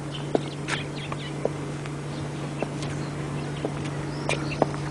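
Birds chirping now and then, with scattered short sharp ticks about once a second over a steady low hum.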